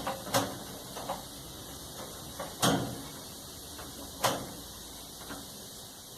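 Sharp knocks and clicks from a Brastemp clothes dryer's front panel being pulled free of its fittings, the loudest about two and a half and about four seconds in.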